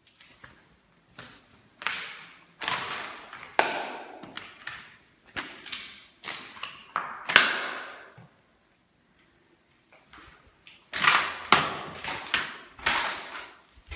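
Footsteps scuffing and knocking on a bare, dusty floor in an empty room, irregular and about one step every half second to a second, stopping for about two seconds past the middle before going on.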